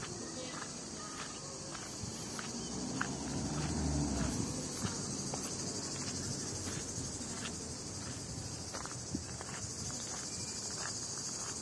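Steady high-pitched chirring of insects, with footsteps crunching on gravel and a low rumble that swells and fades about four seconds in.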